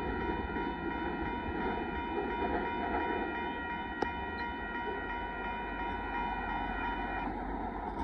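Railroad crossing warning bell ringing steadily while the crossing gates rise, cutting off suddenly about seven seconds in, over the steady rumble of the departing freight train. A single faint click about halfway through.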